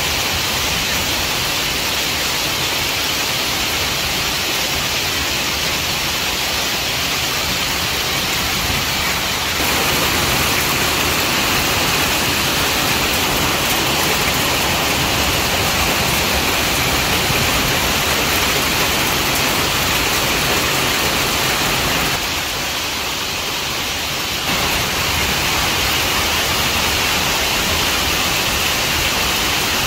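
Heavy rain pouring down: a dense, steady hiss. It gets a little louder about a third of the way in and is briefly quieter about three-quarters through.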